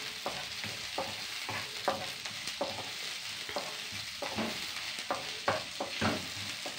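Sliced onions and green chillies sizzling in hot oil in a non-stick frying pan, stirred and scraped with a plastic spatula in irregular strokes, about two a second.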